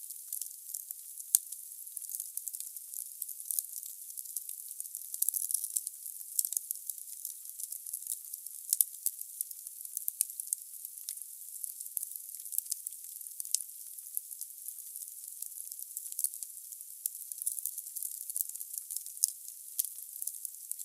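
Firewood burning in a fireplace: a steady hiss of fire with frequent sharp crackles and pops. The loudest pop comes about a second in.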